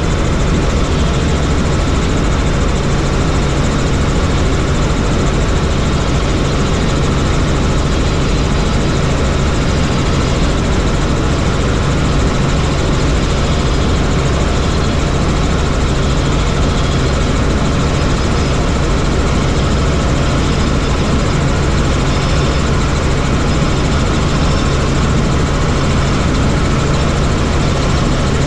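Helicopter in flight: a steady, unchanging engine and rotor drone with a constant low hum under it.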